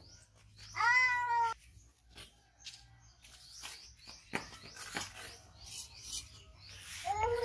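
A baby macaque gives two drawn-out, high pitched calls: one about a second in, and another, rising at first, near the end. Scattered light taps and scrapes fall between them.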